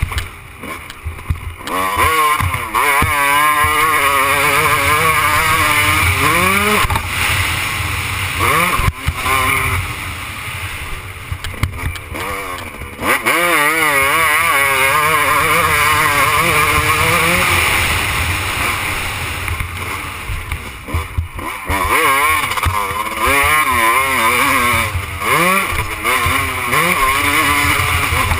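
Motocross bike's engine, heard close up from the rider's helmet, revving up and easing off again and again as it is ridden around a dirt track. The throttle closes briefly near the start, about halfway through and again a little later.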